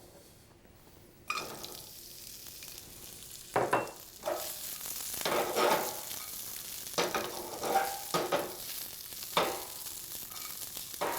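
Snow peas sizzling as they are sautéed in a hot pan with sesame oil. The sizzle starts suddenly about a second in, and the peas are stirred and tossed in the pan several times, with short clatters.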